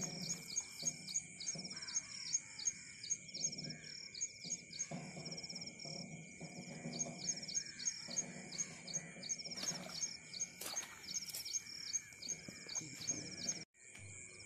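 Evening paddy-field ambience: a high chirping call repeated rapidly, about three times a second with short pauses, over a steady high-pitched insect drone.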